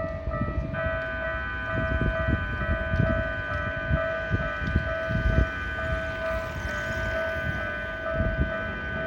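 Japanese railway level-crossing warning bells ringing in a steady repeating pattern, with a second bell joining about a second in, over a low, uneven rumble.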